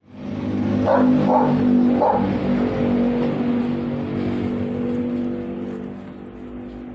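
Ford E150 van's V8 engine running steadily, the engine that is throwing a P0308 cylinder 8 misfire code; it gets quieter after about five seconds.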